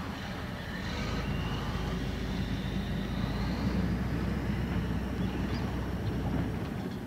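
Small diesel locomotive of a rail-maintenance work train moving off slowly, its engine a steady low drone that swells as it pulls away. A faint high squeal rises in pitch through the middle.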